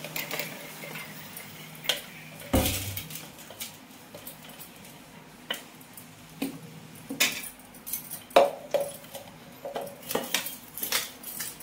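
Stainless-steel mixer-grinder jar knocking and clinking against aluminium pots as ground pitha batter is tipped and tapped out of it: scattered metal knocks of varying strength, the sharpest about eight seconds in.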